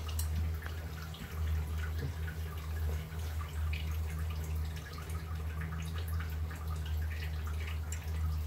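Pot of liquid simmering on a stove burner: small, irregular bubbling pops and drips over a steady low hum.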